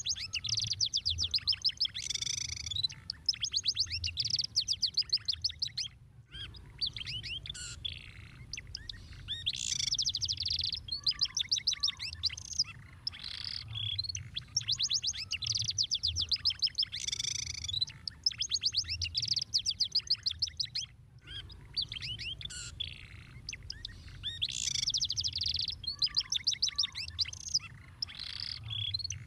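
Domestic canary song: long runs of rapid trills and rolls, phrase after phrase, that stop abruptly twice.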